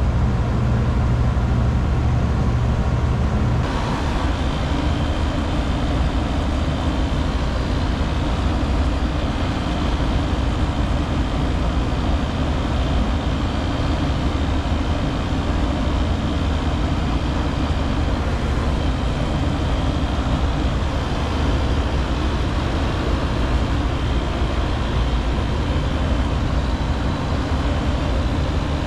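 Steady mechanical hum and rush of rooftop HVAC equipment running, heaviest in the low range. The low hum changes about four seconds in.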